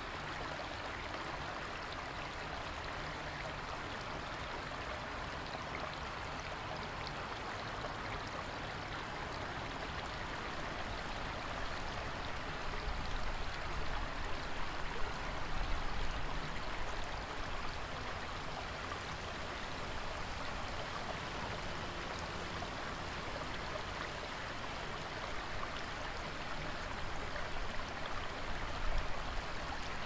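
Small stream waterfall: water spilling over rocks into a shallow pool with a steady splashing, babbling rush. Low rumbles swell briefly in the middle and again near the end.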